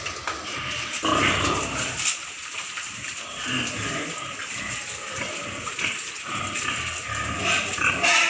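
A crowd of piglets grunting continually as they feed, loudest about a second in.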